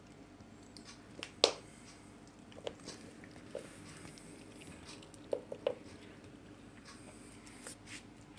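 A cat eating a treat: irregular short clicks and crunches of chewing, the loudest about one and a half seconds in and a quick run of three a little past the middle.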